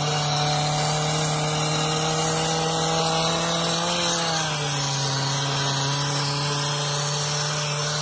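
An engine running steadily with a low, even hum, easing down to a slightly lower pitch about halfway through.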